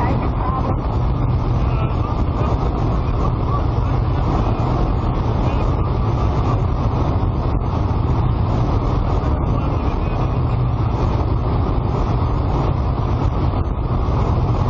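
Light aircraft's engine and propeller with rushing wind, heard from inside the cockpit: a loud, steady drone that holds level throughout.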